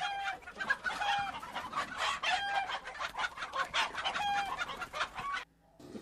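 Domestic chickens clucking in short, repeated calls about once a second, cut off suddenly near the end.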